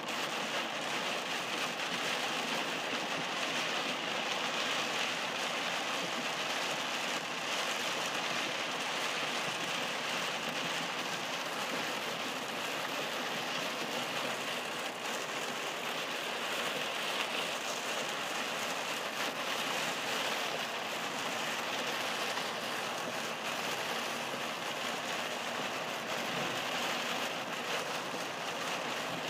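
Heavy rain beating on a moving car's windshield and roof, heard from inside the cabin as a steady, dense hiss.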